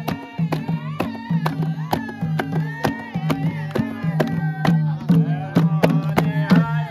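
Group singing of a Nepali salaijo folk song, voices over a steady beat of frame-drum strokes, hand claps and a madal-style barrel drum.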